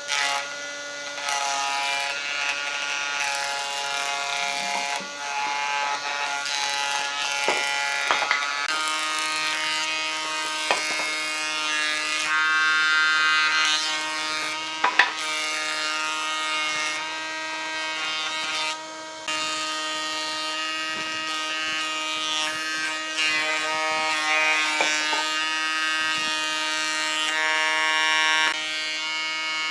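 An electric power tool's motor running under load, a steady buzzing whine whose pitch shifts in the first few seconds and then holds, with a few sharp knocks.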